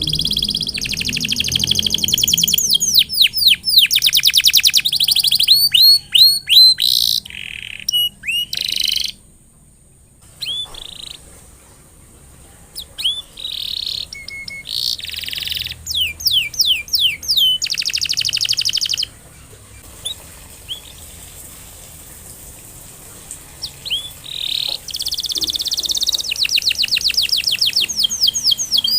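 Canary singing in phrases of fast rolling trills and runs of quick falling chirps, with short pauses between phrases and a quieter, sparser stretch in the middle.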